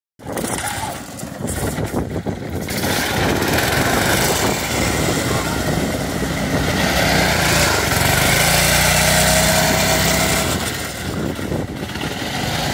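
Murray off-road buggy's small single-cylinder engine running under throttle while the buggy drives doughnuts on grass. The engine note rises and falls with the throttle and dips briefly about a second in and again near the end.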